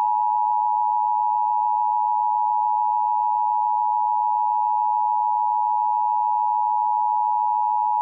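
Emergency alert attention tone for a weather warning broadcast: one long, steady electronic tone that does not change, sounded to signal that a warning message is about to be read.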